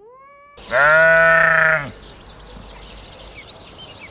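A short rising call at the start, then one loud, steady bleat from a farm animal lasting about a second. Faint bird chirps follow in the background.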